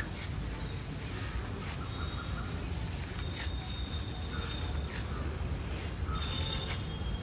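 Street ambience: a steady low rumble of traffic with scattered light clicks and clatters, and a thin high whistle-like tone held three times for a second or so.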